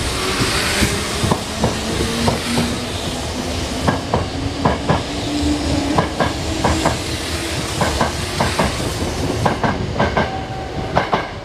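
Sanyo Electric Railway 5000 series electric train pulling out and accelerating past, its traction motors whining with a slowly rising pitch. Its wheels click over rail joints in close pairs, coming quicker as it speeds up, with a brief hiss at the start.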